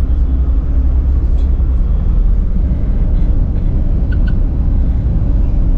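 Steady low rumble of a moving road vehicle heard from inside it: engine and road noise.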